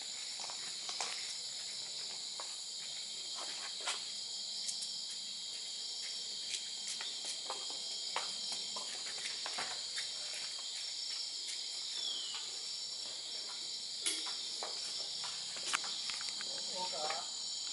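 Steady high-pitched chorus of crickets and other night insects, with scattered light clicks and footsteps; a faint voice comes in near the end.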